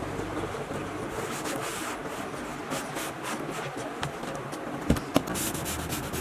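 Hand work on chair upholstery material: rubbing and rustling over a steady background noise, with two sharp clicks in quick succession about five seconds in.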